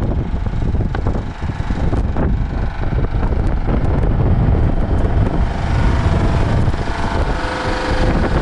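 Engine of a portable twin-tank air compressor running steadily, a low rumble throughout with a steady hum that comes through more clearly over the last couple of seconds.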